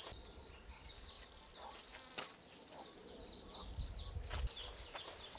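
Faint insects chirping, a steady high-pitched pulsing trill, with a soft knock about two seconds in and a low rumble around four seconds in.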